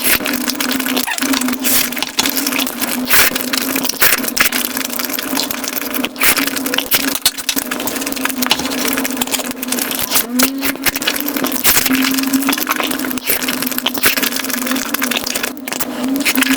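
Sped-up eating sounds: dense, rapid crunching and clicking of chewing, over a steady low hum that shifts pitch a few times.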